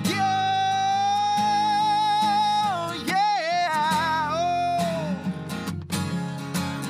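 Folk song sung with acoustic guitar: the singer holds a long note on the last word of the chorus line, slides through a short wavering vocal run, and lets the note fall away about five seconds in, while the guitar keeps strumming chords, alone near the end.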